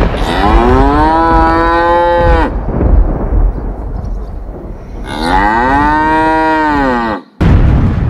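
Cow mooing twice, two long calls of about two seconds each that rise, hold and drop away at the end, over a steady noise of rain.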